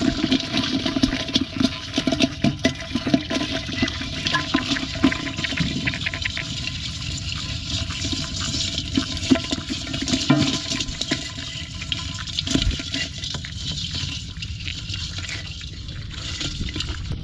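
Freshly caught live fish thrashing and splashing in a shallow basin of water, with many quick wet slaps and clicks, busiest over the first twelve seconds or so, then settling.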